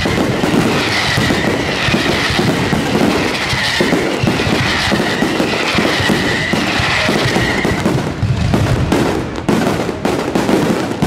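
Aerial firework shells bursting in a rapid, continuous barrage, the bangs and crackle running together into one loud wash. Toward the end the barrage thins into more separate, sharp bangs.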